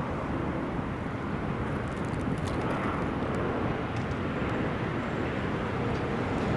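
Steady outdoor rumble of distant engines, an even wash of traffic or aircraft noise with no distinct events.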